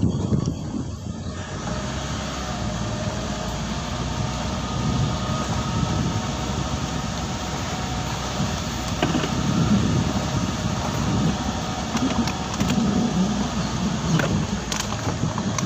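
Vehicle driving along a narrow rough road: steady engine and road noise, with wind buffeting the microphone in the first second and a few light knocks later.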